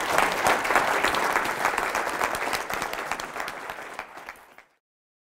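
Audience applauding, many hands clapping at once; the applause thins out and cuts off about four and a half seconds in.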